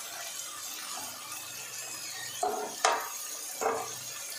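Vegetables frying in a non-stick kadai with a faint steady sizzle, and three clinks of kitchenware between about two and a half and four seconds in, the middle one the loudest and sharpest.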